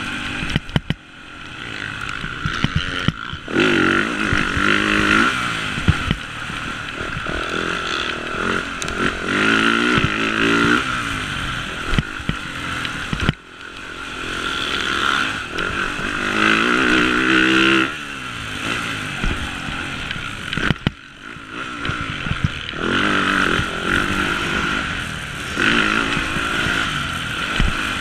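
Motocross bike engine heard on board, revving up again and again as the rider accelerates down the straights, with the pitch climbing each time and dropping away as the throttle is shut. Sharp knocks and clatter from the bike hitting ruts and bumps come through now and then.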